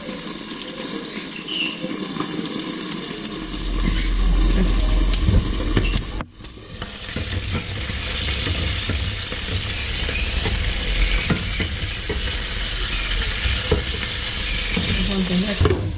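Fish fillets sizzling as they pan-fry in oil over high heat under a glass lid, crisping up. The sizzle cuts out briefly about six seconds in, then comes back louder.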